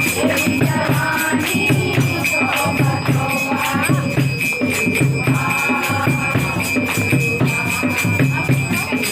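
Music with singing over a steady drum beat and jingling percussion.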